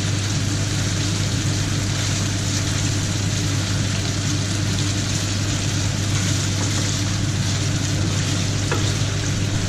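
Diced beef sizzling in oil in a frying pan as it is stirred with a wooden spatula: a steady hiss, with a steady low hum underneath.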